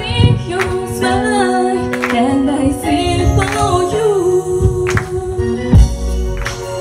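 Pop song performed live: women singing into microphones over backing music with a pulsing beat.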